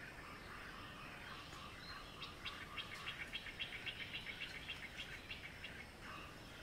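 Faint bird calling a fast run of short, high notes, about six a second, over quiet forest-pond ambience.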